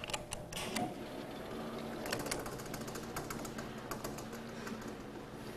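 Chalk tapping and scraping on a blackboard in irregular quick clicks, with a dense run of taps about two seconds in.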